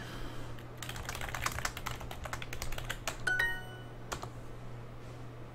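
Rapid computer-keyboard typing, then a short bright Duolingo correct-answer chime about three seconds in, followed by a single click.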